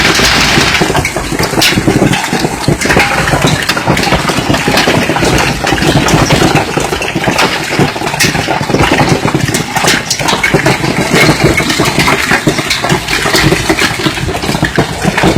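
Hailstorm: a dense, loud pelting of hailstones, many sharp clicks and knocks over a steady rush of falling hail and rain.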